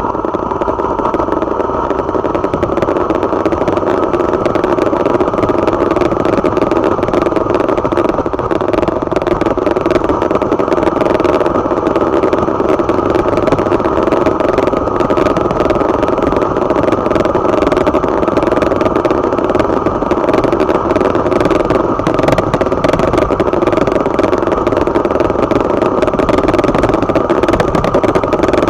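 Motorcycle engine running steadily while riding along at an even pace, with wind noise on the microphone.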